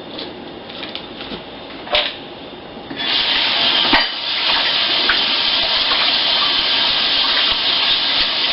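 A few light knocks, then a tap turned on about three seconds in, water running steadily into a sink.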